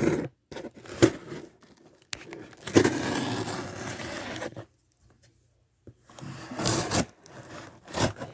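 A knife slicing open a shipping package, with scraping and tearing stretches and a few knocks as the package is handled. The longest stretch of scraping lasts about two seconds, followed by a brief pause.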